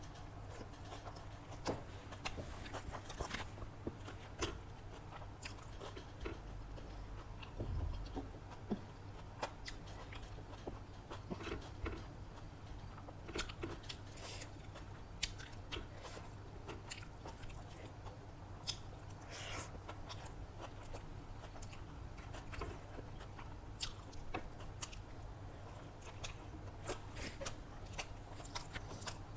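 Close-up eating sounds: a person chewing and biting into chicken biryani and salad, with irregular crunches and wet mouth clicks over a steady low hum.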